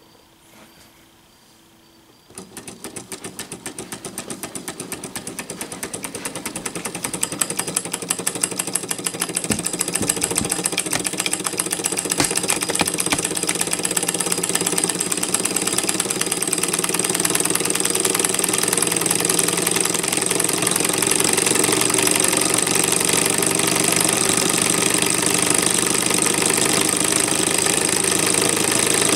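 Twin-piston Stirling engine starting to run about two seconds in, once its burner-heated end is hot enough: a rapid, rhythmic mechanical ticking from its pistons and linkage that picks up speed and loudness over the next several seconds, then runs fast and steady with a high whine.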